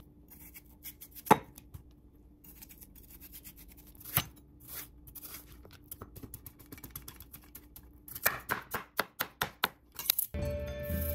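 Knife chopping cucumbers on a cutting board: a few separate chops, then a quick run of chops near the end, about four or five a second.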